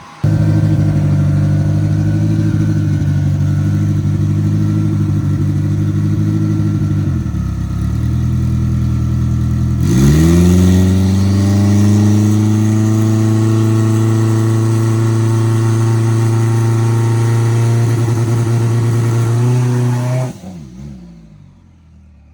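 Turbocharged race car engine running at a steady speed, then revving up quickly about ten seconds in and holding a higher steady speed for about ten seconds before the throttle is let off near the end and it drops away.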